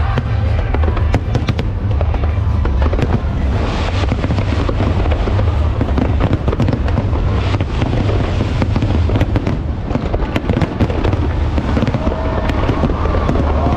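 Fireworks display going off continuously: a steady heavy rumble of shell bursts with dense crackling and sharp cracks throughout.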